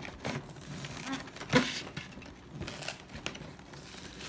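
Cardboard card-collection box being handled and opened: scattered light scrapes, rustles and clicks of the packaging, with one sharper knock about a second and a half in.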